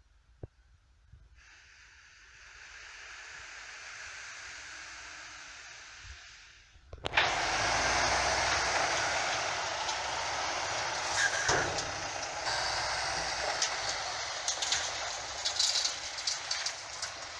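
Ford Cargo 1848T truck tipping sand from its raised tipper semi-trailer: a steady hiss for several seconds, then about seven seconds in a sudden, much louder rush of noise with scattered rattles.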